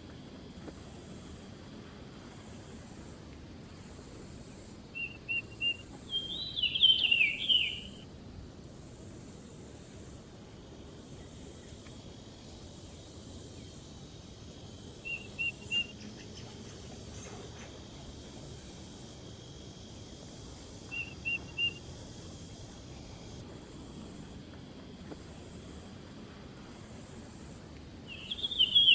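Forest birdsong: a bird sings a short warbled phrase about a quarter of the way in and again at the end, with brief triple chirps every several seconds. Beneath it is a faint high hiss that pulses about once a second.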